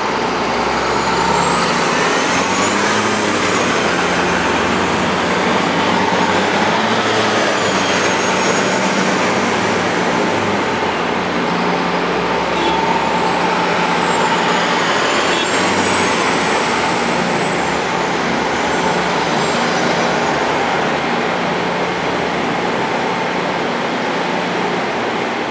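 Convoy of heavy armoured patrol vehicles of the Ridgeback type driving past, with engines running with a steady low hum under a loud, steady rush of noise. High thin whines rise and fall several times as vehicles pass.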